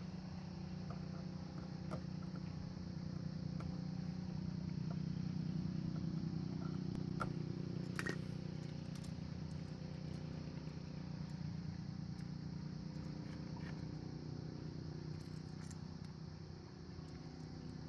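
Steady low mechanical hum, with a few faint clicks and one sharper click about eight seconds in.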